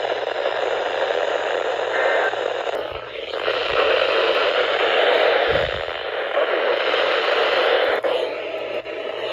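Weather radio receiver hissing with static on a weak signal, over a faint steady low hum.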